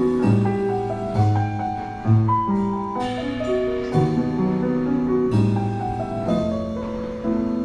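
Piano trio music played by Yamaha's automated instruments: a self-playing grand piano carrying the melody and chords over upright bass notes, with a few cymbal strokes from the automated drum kit.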